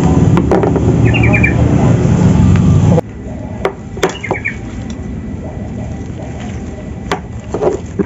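A loud, steady low rumble that stops abruptly about three seconds in; a small bird chirps in quick runs of about four notes, twice. Scattered sharp clicks and knocks sound throughout.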